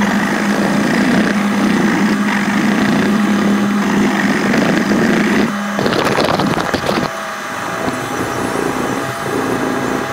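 Sandpaper scraping over a kitchen knife's handle and bolster in quick hand-sanding strokes, sped up. A steady low hum runs under it until about five and a half seconds in.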